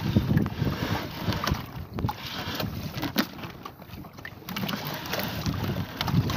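Fishing net being hauled by hand over the side of a small boat, with scattered knocks and rustles of net and line against the hull, over a rumble of wind on the microphone.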